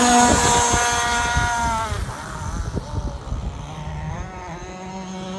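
TFL Ariane RC gas boat's two-stroke petrol engine buzzing at high revs as the boat speeds past. About two seconds in its pitch drops and it fades as the boat moves off, then it picks up and climbs again near the end.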